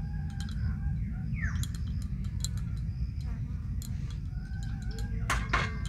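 Birds chirping in the background over a steady low rumble, with short high chirps and a few drawn-out calls.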